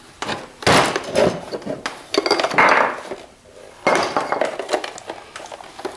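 Plastic housing and parts of a CPAP machine clattering and knocking as it is pried apart and handled on a wooden workbench: several separate spells of rattling and clunks.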